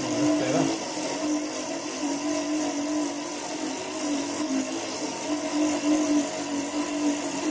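775 DC motor of a lathe toolpost drill running steadily under load while its twist drill cuts a cross hole in mild steel tubing. It is a steady motor whine with a faint overtone over a hiss of cutting.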